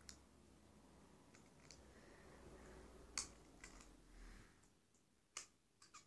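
Near silence, with a few faint, short clicks from about three seconds in.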